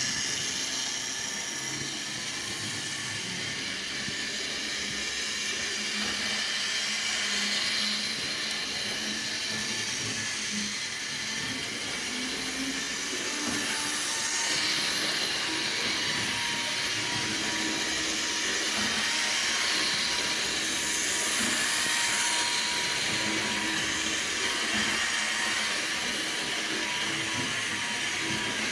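HO-scale Model Power electric model train running on its track: the small locomotive motor whirs steadily with a faint whine, over the hiss of the wheels rolling on the rails.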